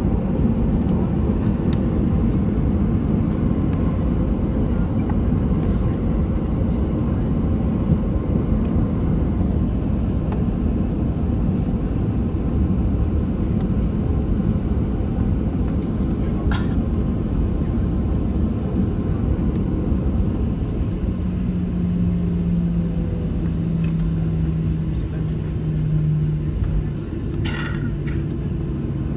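Cabin noise of a Boeing 737-800 taxiing: a steady low rumble of its CFM56 engines at taxi power. About two-thirds of the way through, a steady hum joins in and drops slightly in pitch near the end.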